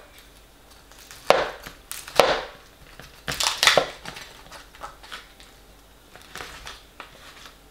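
Metal cutlery scraping and digging in an aluminium foil tray, breaking up the baked dumpling topping of a steak pie: a series of sharp scrapes and crunches. The loudest come in the first four seconds, and fainter ones follow.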